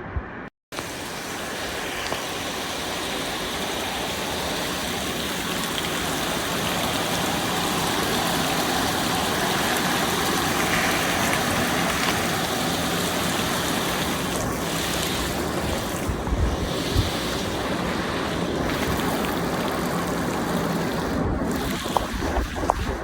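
Steady rushing noise of heavy rain pouring into a car through its broken window. Low wind rumbles on the microphone come and go in the last third.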